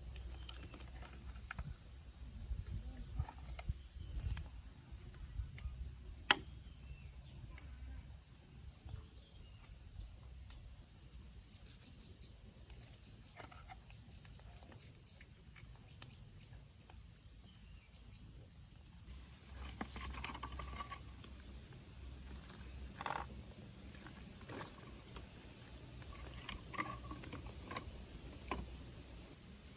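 Steady high-pitched insect drone, likely crickets, with scattered light clicks and knocks over it; one sharper click comes about six seconds in.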